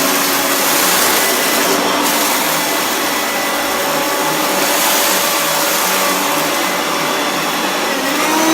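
Hoover Turbopower Freedom upright vacuum cleaner running steadily on high power.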